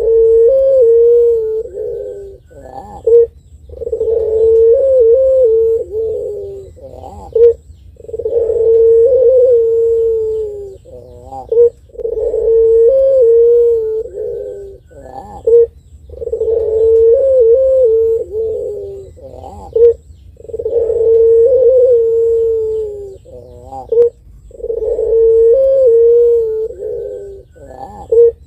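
Puter pelung (ringneck dove) cooing over and over: long, drawn-out coos of two to three seconds each, about every four seconds, each followed by a short higher note.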